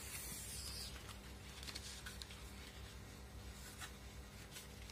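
Faint rustling of a thin plastic tear-off film being handled against a KYT R10 helmet visor, with a few light ticks of plastic on plastic as it is lined up on the posts.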